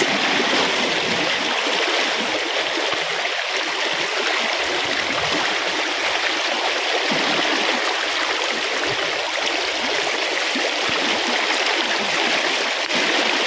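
Fast-flowing river rushing steadily.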